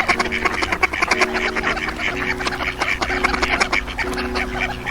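Ducks quacking in a rapid, overlapping chorus over background music.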